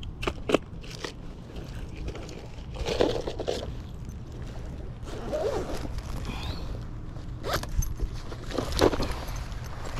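Intermittent scraping and rustling with scattered clicks, over a steady low rumble.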